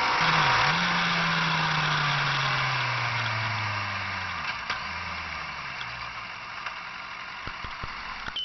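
Motorcycle engine running as the bike slows down, its note falling steadily with two brief dips, under steady wind and road hiss; the sound gradually gets quieter.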